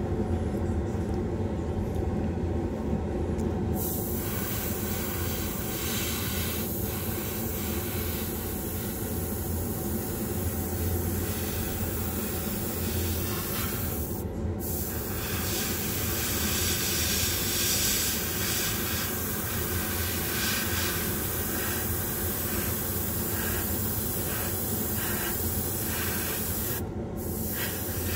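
Gravity-feed airbrush spraying paint in a steady hiss, starting about four seconds in and pausing briefly twice, over a constant low mechanical hum.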